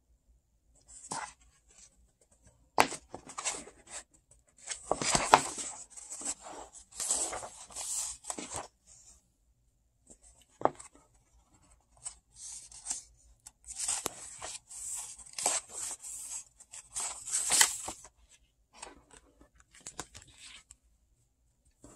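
Paper pages of a paperback book being turned and handled, rustling and flapping in short irregular bursts, with a quick riffle through the page edges near the end.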